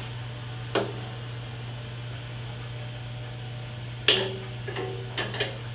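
Light metallic clicks and one sharper clank as the throttle linkage on a 1946 Wisconsin engine is worked by hand, over a steady low hum.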